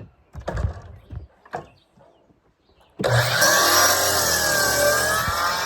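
An electric saw starts suddenly about three seconds in and runs loud as it cuts through wood at a 50-degree angle, its pitch dipping and rising as the blade takes the load. Before it, a few short knocks.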